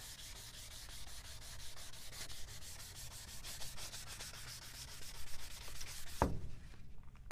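400-grit wet sandpaper rubbed by hand over a plastic car headlight lens in quick, even side-to-side strokes. The sanding stops about six seconds in with a single sharp thump.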